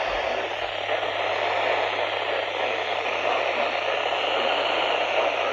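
Steady radio static hiss from a weather radio receiver with no broadcast voice, over a low steady hum.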